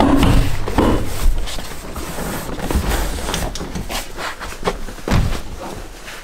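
BMW E30 rear seat base cushion being pried up and lifted out: rustling vinyl and fabric with a string of knocks and clicks.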